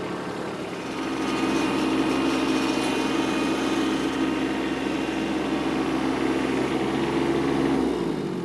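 Kubota B2601 compact tractor's three-cylinder diesel engine running. It revs up about a second in, holds a steady speed, then winds down near the end.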